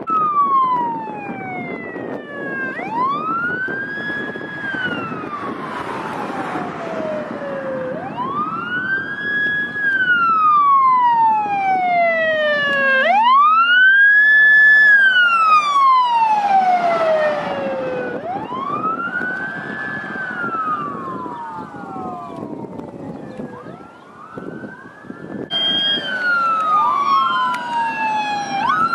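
Fire apparatus sirens on the wail setting as the vehicles drive past, each cycle a quick rise, a short hold and a slow fall, repeating about every five seconds over engine and tyre noise. The siren is loudest in the middle, and near the end a second siren overlaps the first.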